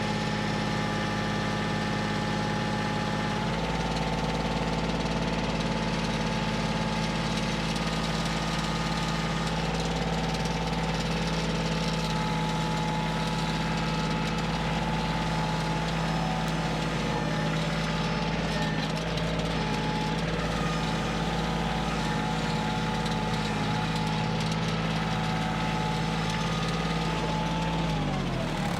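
Kioti CK2610 compact tractor's diesel engine running steadily under load while its loader hydraulics try to lift a heavy red oak log. The engine note shifts about three and a half seconds in and falls away near the end as the engine slows.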